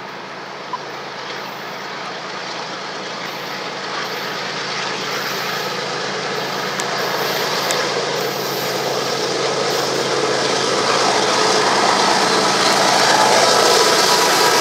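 Approaching Canadian Pacific GE diesel-electric freight locomotives hauling a grain train. Engine drone and rail noise grow steadily louder as the lead units draw up and pass, and steady tones come through in the last few seconds.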